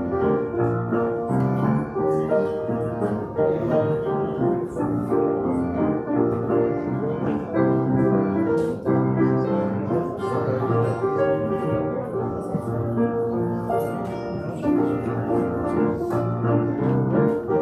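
Piano music playing, held notes changing one after another.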